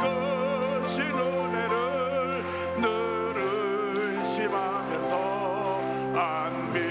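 Voices singing a hymn with strong vibrato on long held notes, over sustained instrumental accompaniment.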